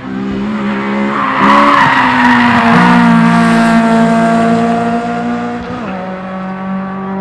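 Honda Civic EK race car passing at speed with its engine revving high and loud. A rush of noise comes as it goes by closest, then the engine note drops and steps down again about six seconds in as the car pulls away.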